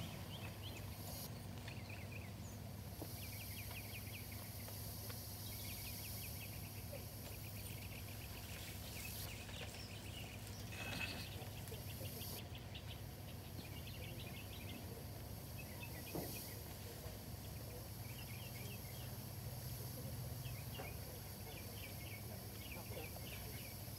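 Faint outdoor ambience: short high chirping calls repeating throughout over a steady low hum, with a couple of brief knocks about eleven and sixteen seconds in.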